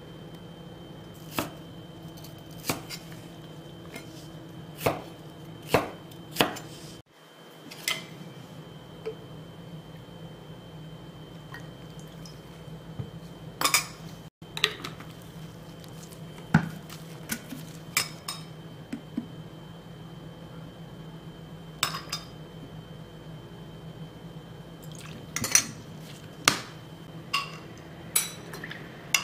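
Stainless steel kitchenware clinking and tapping: a measuring spoon, a small measuring cup and mixing bowls knocked and set down at irregular intervals, with light liquid sounds as soy sauce and water are spooned into the cup. A steady low hum runs underneath, and the sound cuts out briefly twice.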